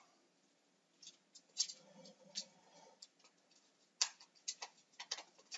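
Irregular light clicks and taps of a small seed container being handled in the fingers, as tiny seeds are put back into it; the sharpest click comes about four seconds in, followed by a quick cluster of smaller ones.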